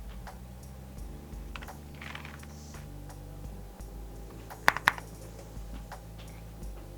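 Keys being pressed on an AKKO MonsGeek M1 V5-SP mechanical keyboard fitted with Akko V3 Creamy Purple Pro tactile switches. Scattered single keystrokes, with two louder clacks in quick succession about two-thirds of the way in.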